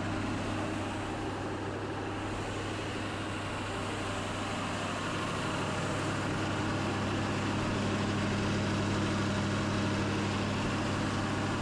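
Kodiak 5500 truck engine idling steadily after a heater hose repair, being run to check for leaks. The sound grows slightly louder, and a higher hum joins about halfway through.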